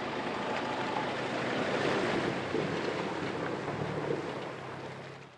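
Ford pickup truck driving through a shallow rocky river: a steady rush and splash of water with the engine's low hum underneath. It fades out toward the end.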